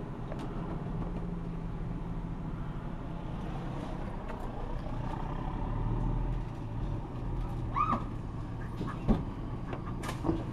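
A steady low engine hum, with a few sharp knocks in the last few seconds.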